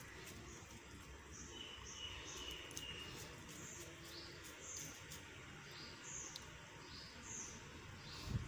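A bird chirping repeatedly in the background: short, high notes a little more than once a second, faint over low background noise, with one thin held whistle early on.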